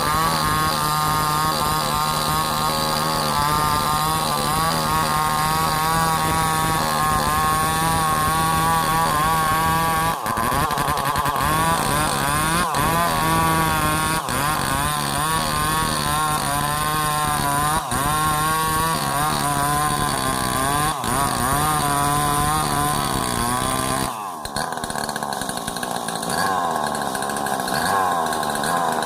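Two-stroke chainsaw running under load while cutting sengon wood, its engine pitch wavering up and down as the chain works through the cut. There are a few brief breaks, and the sound changes abruptly about three-quarters of the way through.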